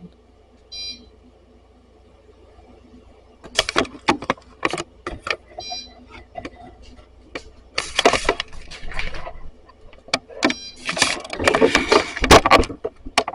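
Dog moving about excitedly, with a jingling collar and tags and scraping and scuffling in irregular bursts. These start about three seconds in and are densest in the second half. There are also three brief high-pitched tones.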